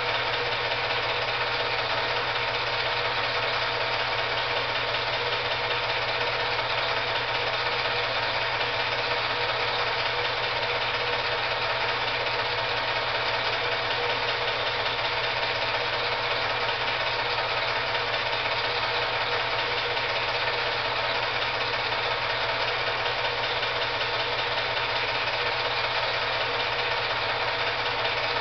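Steady mechanical running noise of an 8mm film projector, unchanging throughout.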